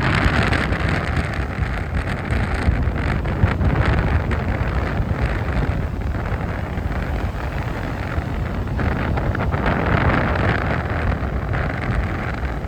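Strong wind buffeting the iPhone 13 Pro's microphone, a continuous low rumble with gusts of hiss, over heavy sea surf.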